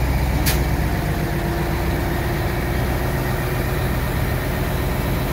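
Wirtgen W1900 cold milling machine's diesel engine idling steadily, with a short hiss about half a second in.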